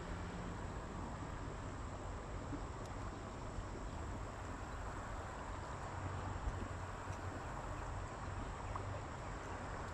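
Steady outdoor background: an even hiss with a low rumble underneath and a thin, steady high drone, with no distinct events.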